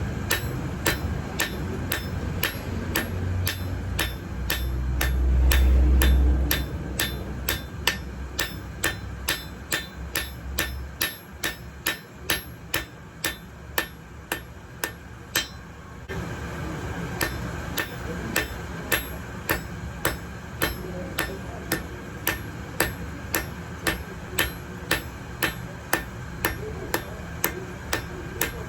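Blacksmith's hammer striking hot metal on an anvil in a steady rhythm, about two ringing blows a second. A loud low rumble swells and fades about four to six seconds in.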